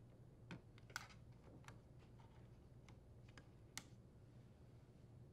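Faint, scattered plastic clicks and ticks, about six of them, from a small flat-blade screwdriver working the locking tabs of the wire-harness connectors on an air conditioner control board. The clearest come about a second in and just before four seconds in, over a low steady hum.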